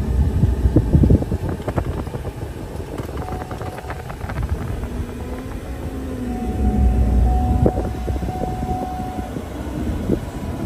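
Cab noise inside a Ford Super Duty pickup on the move: a steady low rumble of engine and road.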